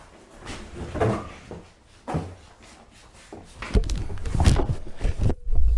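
Hard-shell pedal case being handled on a plastic-covered table: scattered knocks and scrapes, then a run of heavier thumps over the last two seconds.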